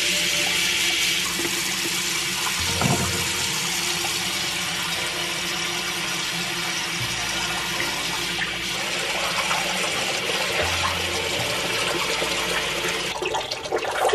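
Kitchen tap running steadily into a ceramic sink, the water splashing over a small dog as it is rinsed.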